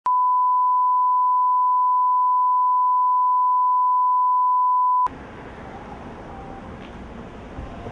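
A steady 1 kHz reference test tone of the kind that goes with colour bars, held for about five seconds and then cut off abruptly. Street traffic noise follows.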